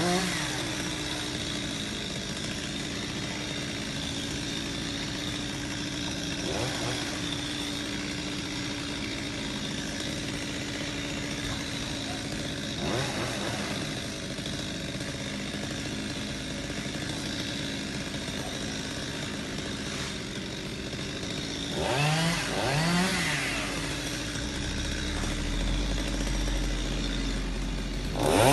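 Chainsaw running steadily, its engine revved up and back several times, twice in quick succession near the end.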